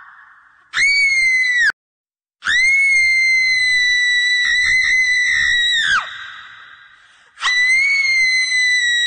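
High-pitched screams, each held at a steady pitch. A short one about a second in cuts off abruptly. A long one of about three and a half seconds drops in pitch at its end and trails off with an echo. A third begins near the end.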